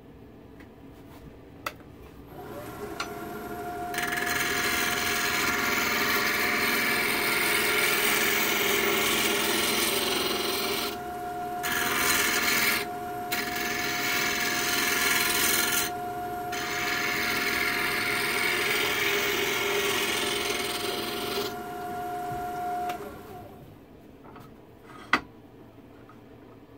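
Small wood lathe starting up, its motor whining steadily, while a turning tool cuts the spinning wood blank with a hissing, rasping shaving sound that stops briefly three times as the tool is lifted. The lathe winds down near the end, followed by a single sharp knock.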